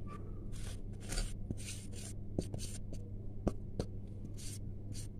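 Faint rustling and scraping with a few sharp clicks as hands and utensils work at a steel mixing bowl of raw kebab mix, over a steady low hum.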